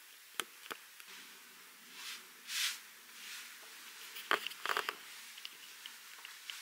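Quiet handling sounds: two light clicks, then soft swishes of fabric, then a brief cluster of clicks and rustles a little past halfway, as a leather belt with a metal buckle and clothing are handled.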